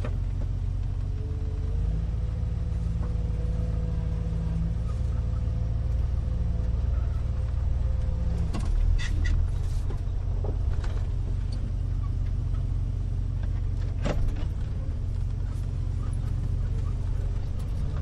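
Cab interior of a 1970 Chevrolet 2500 pickup on the move: a steady low engine and road rumble with a faint held tone that drops out about eight and a half seconds in. A few knocks and rattles come around nine seconds in and once more near fourteen seconds.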